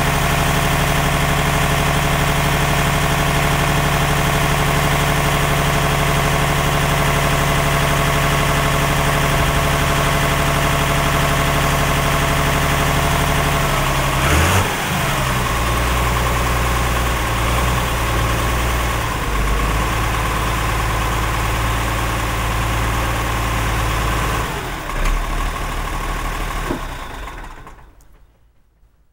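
Deutz DX tractor's air-cooled diesel engine running steadily under hydraulic load while the tipping cylinder lifts a dump trailer bed. The engine note drops and settles about halfway through, shifts again later, and the sound falls away shortly before the end.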